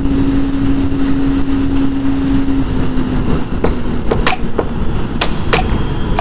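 Kawasaki ZX25R's inline-four engine with a Yoshimura R77 exhaust running at steady cruising revs, under heavy wind rumble on the microphone. The engine note eases slightly about two and a half seconds in, and several sharp clicks come in the second half.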